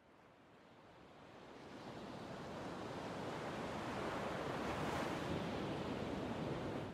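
Sea waves washing and sloshing. The sound fades in over the first two seconds, holds steady, then stops sharply at the end.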